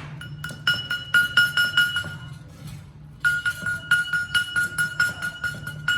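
Rapid hammer blows on a steel gearbox main shaft, about four a second, each ringing with a high metallic tone. The blows stop for about a second midway, then start again over a low steady hum.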